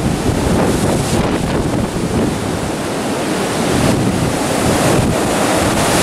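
Gale-force wind rushing through woodland treetops and buffeting the microphone, a loud, continuous noise that swells and eases slightly with the gusts.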